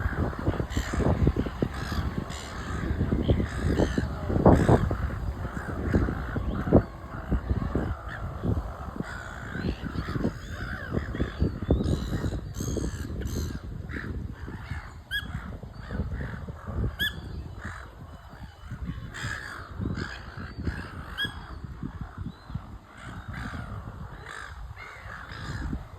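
Birds calling, with a run of short, evenly repeated call notes in the second half, over a low rumble.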